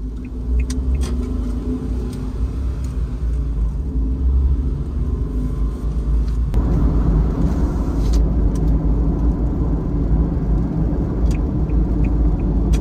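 A kei van driving, its small engine and road noise running steadily, with the engine note rising about six and a half seconds in as it speeds up. A few light ticks sound near the end.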